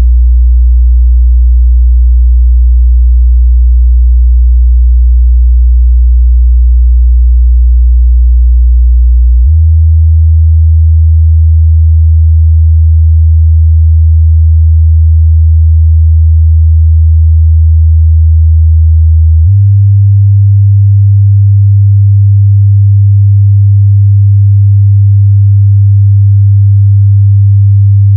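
Loud subwoofer test signal: a steady 60 Hz sine tone that steps up to 80 Hz about ten seconds in, then to 100 Hz about twenty seconds in, each pitch held for about ten seconds.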